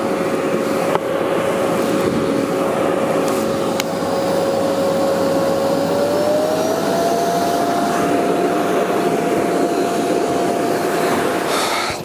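Philips Performer Ultimate bagged canister vacuum cleaner running with its nozzle on carpet: a loud, steady rush of suction with a whine that steps up a little in pitch about halfway through.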